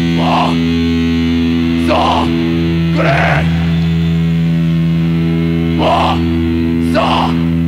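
Death metal recording: a held, distorted electric guitar chord droning steadily, with a handful of short, brighter accents sounding over it.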